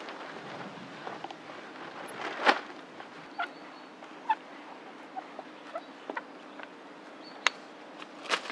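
Hand-tool work on a wooden bench frame: irregular sharp clicks and knocks, three of them louder, with short squeaky creaks in between.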